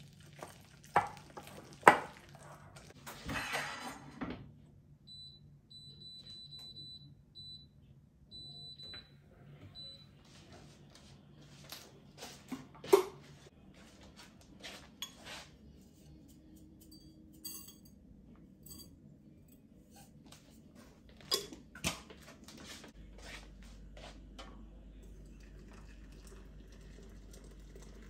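Scattered clinks and knocks of dishes and utensils being handled, with a short scraping rattle a few seconds in. A faint high beep repeats on and off for a few seconds.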